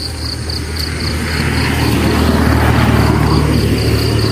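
A motor vehicle passing on the road: a low engine hum with road noise that grows louder from about a second in and eases off near the end. Crickets chirp in a steady pulse over it.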